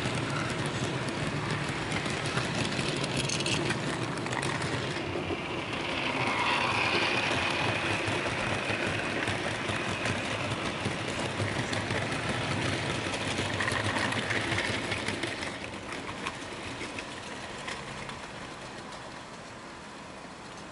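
Model railway fish train of white insulated vans running past at speed, its wheels and running gear clattering steadily on the track. The sound fades away about three quarters of the way through as the train draws off.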